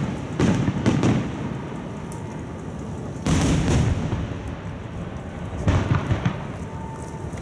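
Aerial firework shells bursting about half a kilometre away: two booms in the first second, a longer, heavier one about three seconds in, and a quick run of three near the end.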